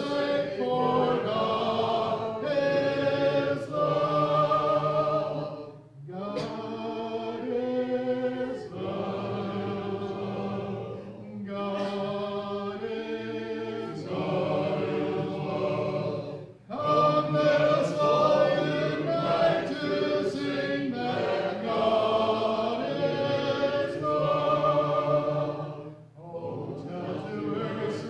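Congregation singing a hymn a cappella, men's and women's voices together in parts. The singing goes in phrases, with short breaks for breath about six, seventeen and twenty-six seconds in.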